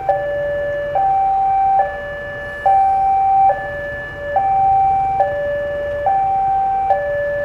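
Railway level-crossing warning alarm sounding: an electronic two-tone chime that alternates between a higher and a lower note, each held a little under a second. It means the crossing is closed for an approaching train.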